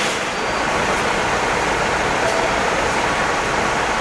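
Steady running noise heard aboard a Hong Kong double-decker tram moving slowly along a city street, blended with road traffic.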